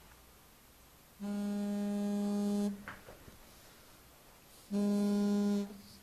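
Samsung smartphone ringing with an incoming call: two rings of a steady, buzzy ringtone, the first about a second in and the second, shorter one near the end.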